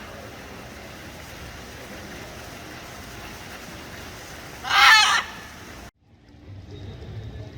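A bird's single loud, harsh call, lasting under a second about five seconds in, over a steady background hiss. The sound cuts off suddenly near the end, giving way to a quieter background.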